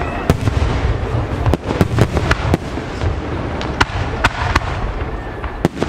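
Aerial firework shells bursting in a professional display: a dozen or so sharp bangs at irregular intervals over a continuous low rumble of further bursts.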